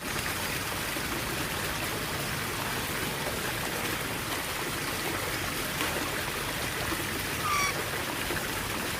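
Steady water-like rushing noise, with one short bird chirp about seven and a half seconds in.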